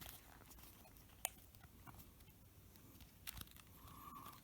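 Near silence, broken by a few faint clicks and taps of small laptop parts being handled as a battery cable is fitted: a sharp click about a second in and two more a little after three seconds.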